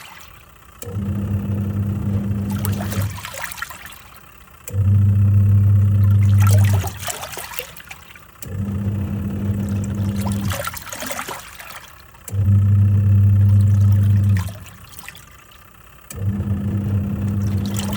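Twin-tub washing machine in its wash cycle. The pulsator motor hums for about two seconds, pauses, then runs again, five runs in all as it reverses direction, with water and clothes sloshing in the tub between runs.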